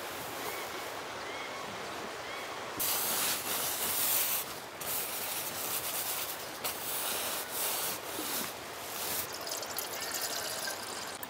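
A finger rubbing and scraping frost on the frozen nylon fly of a Sea to Summit Telos TR2 tent: a run of irregular scratchy rubbing strokes starting about three seconds in and going on for some six seconds.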